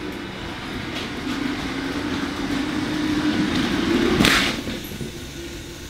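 Motorised Lego Maersk train running on plastic Lego track: motor whine and wheel rattle build as it approaches, peak with a sharp clatter about four seconds in, then die down as it slows.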